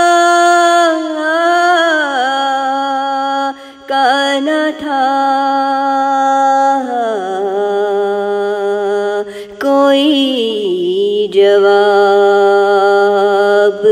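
A woman's voice singing an Urdu naat, drawing out long held notes that glide and step down in pitch between them, with a few short breaks for breath.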